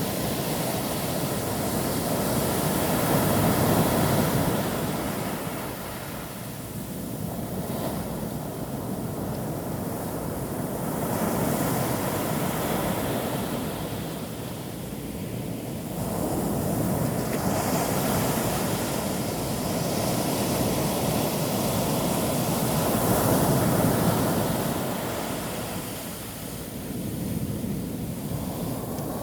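Sea surf breaking on a shore: a rush of noise that swells and eases every several seconds.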